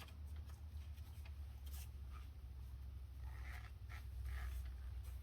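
Faint scraping and light clicks of parts being handled while fitting a suspension-arm bolt, over a steady low hum.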